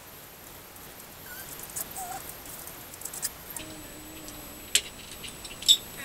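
Screwdriver backing out the screws of an old brass deadbolt: small clicks and scrapes of metal hardware, with two sharp clicks near the end as the lock comes loose.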